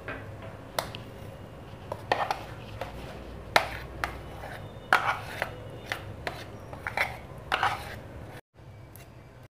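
A metal spoon scraping and clinking against a glass bowl as thick cashew paste is scooped out into a pan: a dozen or so irregular sharp taps and scrapes.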